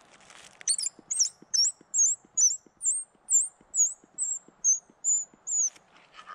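A small animal calling: a run of about a dozen short, high, sweeping chirps, two or three a second, that stops near the end.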